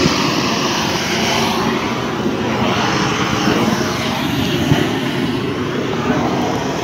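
Gas-fired roofing torch, fed by a hose from an LPG cylinder, burning with a steady rushing noise, as used to heat-weld bitumen roofing membrane.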